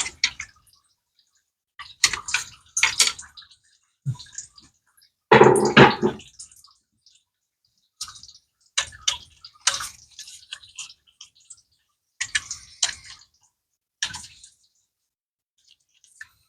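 Engine coolant draining out of the engine during water pump removal, splashing and dripping in irregular bursts, with the loudest burst about five seconds in.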